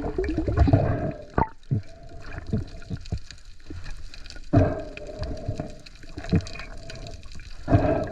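Water gurgling and sloshing, with scattered small clicks and two louder surges, about four and a half and eight seconds in.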